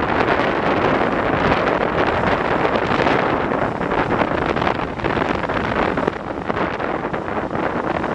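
Wind buffeting the microphone held out of a carriage window of a train running at speed, with the carriages' running noise underneath. The wind drowns out the steam locomotive at the head of the train.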